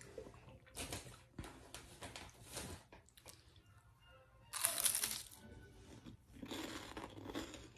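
Crunchy buffalo blue cheese puffs being bitten and chewed: several short bursts of crunching, the loudest about five seconds in.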